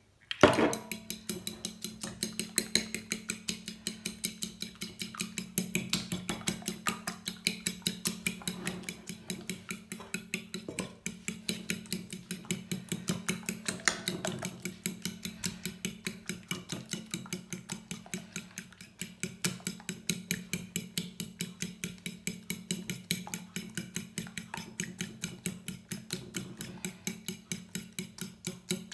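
A fork beating eggs in a bowl, its tines clicking against the bowl in a fast, steady rhythm. There is one louder knock about half a second in.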